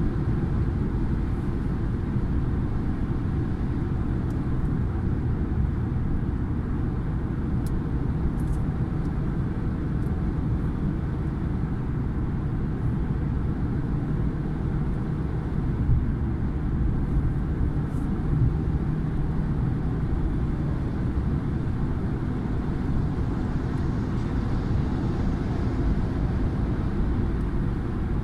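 Car driving at highway speed, heard from inside the cabin: a steady low rumble of tyre, road and engine noise.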